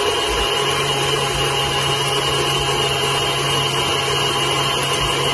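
Electric stand mixer running steadily, its wire whisk beating whipping cream in a stainless steel bowl to stiff peaks. A constant whir at an unchanging pitch.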